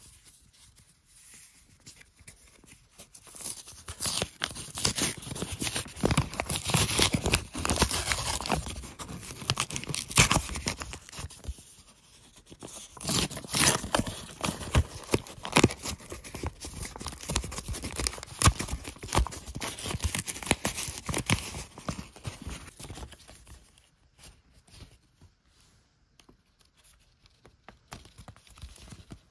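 Paper envelope being torn open by hand: ripping and crinkling paper in two long stretches, with a short lull between them, fading out a few seconds before the end.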